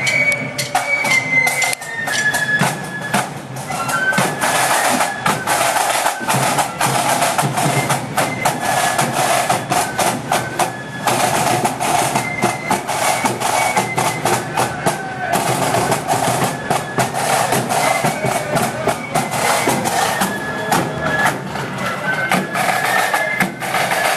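Marching flute band playing a tune: high flutes carry the melody over a steady beat of bass and side drums.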